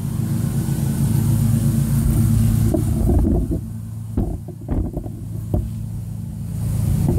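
A motor running steadily with a low hum, with a few faint clicks in the middle.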